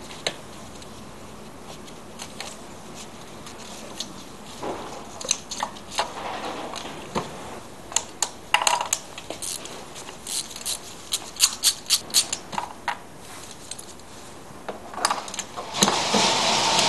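Scattered clicks and metallic clinks of hands and tools working on the ignition coils and spark plugs of a car engine, to get at the plugs and swap them. Near the end a louder steady rushing noise starts abruptly.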